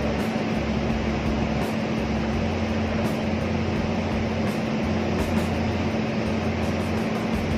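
Steady hum of an electrical switchgear room: a constant mains drone over an even rush of ventilation or air-handling fans.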